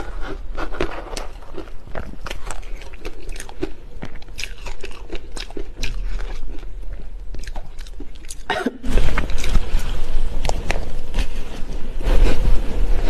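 Close-miked crunching and chewing of shaved ice coated in matcha powder, a dense run of sharp crackles. About nine seconds in the crunching gets louder and thicker as a fresh mouthful is bitten.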